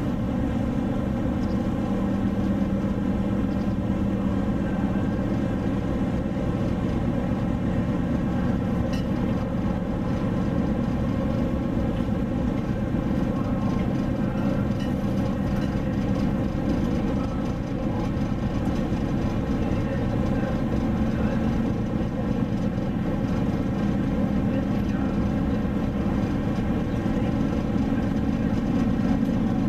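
Cross-Channel car ferry's engines and machinery droning steadily under way, a low hum with several steady tones, heard from the open deck.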